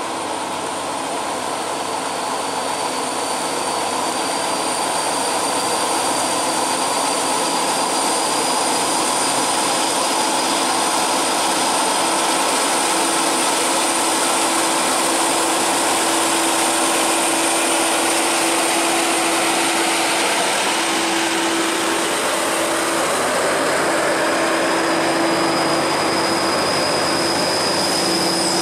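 Heavy FAW truck's diesel engine pulling slowly up a steep grade under load, growing louder over the first few seconds as it approaches, then running steadily. A thin, steady high whine sits above it.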